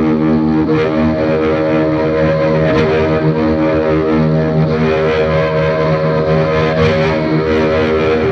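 Music: a sustained droning chord, held steady without a beat.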